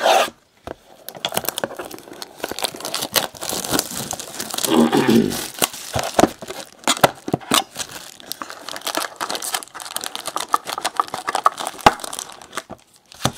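Plastic shrink wrap crinkling and tearing as a sealed box of trading cards is slit open with a utility knife, then the box opened and its foil-wrapped card packs handled: a dense run of small crackles and clicks, with a fuller rustle about five seconds in.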